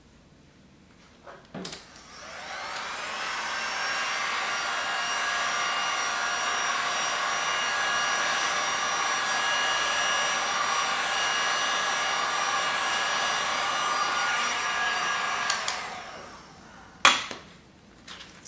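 Electric heat gun switched on with a click, its fan spinning up to a steady blowing hum with a whine over it, held over wet epoxy resin for about twelve seconds, then switched off and winding down. A single sharp knock comes near the end.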